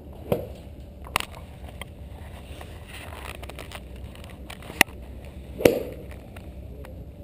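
Iron club striking a golf ball off a driving-range mat twice, once about a third of a second in and again near the end, each a sharp crack with a short ring. Two shorter, sharper clicks fall between the strikes, over a steady low background noise.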